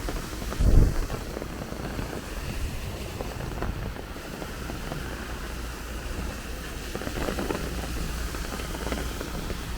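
Heavy rain falling with gusty wind buffeting the microphone in a steady low rumble, and a loud, short gust about a second in.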